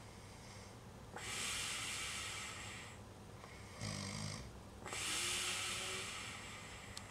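Snoring: slow, noisy breaths a few seconds apart, one of them with a low snort about four seconds in.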